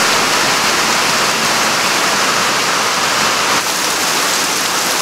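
Heavy rain falling steadily on forest leaves, a loud, even hiss of rain with a brief dip about three and a half seconds in.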